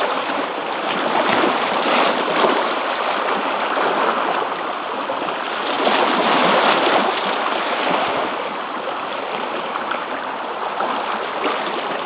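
Seawater rushing and washing against the shore rocks in a steady wash, swelling louder about two seconds in and again around the middle.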